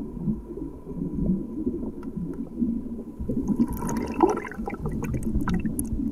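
Moving water churning and gurgling in a low, steady rumble, with small crackles and clicks joining about halfway through.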